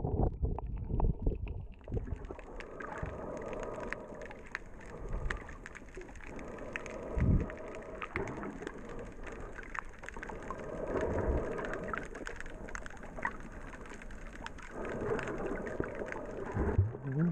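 Underwater sound picked up by an action camera held below the surface: a muffled wash of moving water with many small crackling clicks and a few louder low swells. Near the end it grows louder as the camera comes back up.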